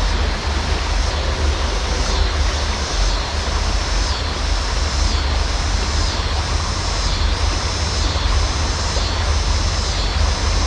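Steady wind buffeting the microphone, a loud low rumble over the even rush of river water.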